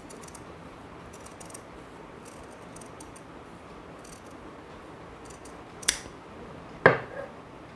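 Large steel tailor's scissors cutting through folded black fabric: a run of faint, crisp snips. Near the end a sharp click, then a louder knock.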